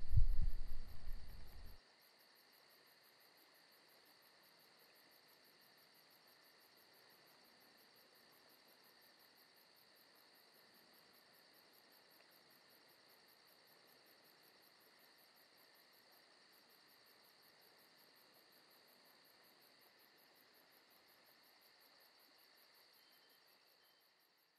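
A deep, loud low rumble for the first two seconds that cuts off abruptly, then crickets chirping faintly and steadily.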